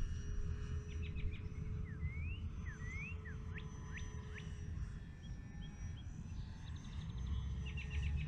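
Birds calling with short rising and falling whistles and quick trills, over a steady low rumble that grows louder near the end.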